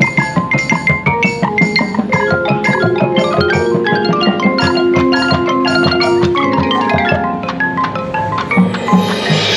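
Marching band music led by the front ensemble's mallet percussion, marimba and xylophone playing rapid runs of quick struck notes over held band chords. Near the end a bright cymbal-like wash swells in.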